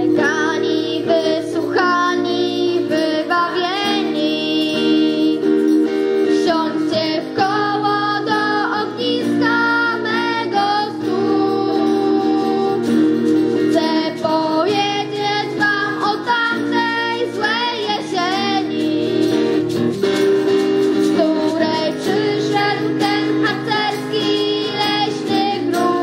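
Young girls' voices singing a song to strummed acoustic guitar accompaniment.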